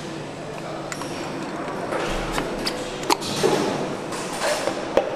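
Light metallic clinks and a few sharp clicks of a piston and connecting rod being handled and fitted into the cylinder bores of an AMG engine block, over steady background noise; the two sharpest clicks come about three and five seconds in.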